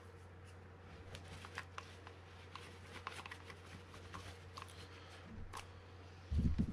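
Light rustling and scattered small clicks of hands wiping excess grease off a Penn Clash 8000 spinning reel and handling its parts, over a faint steady hum, with a louder low thud near the end.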